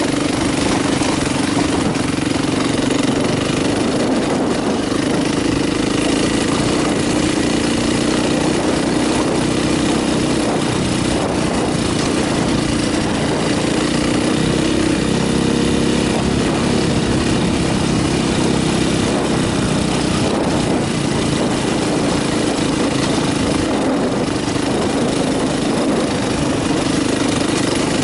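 KTM dirt bike engine running while the bike is ridden over a rocky trail, its note holding fairly steady throughout.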